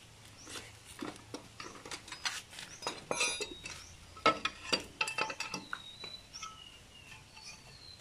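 Metal hand tool clicking and clinking against the bolts and aluminium side cover of a Honda TMX motorcycle engine as the cover bolts are loosened and the cover worked off, in irregular taps with a few short metallic rings.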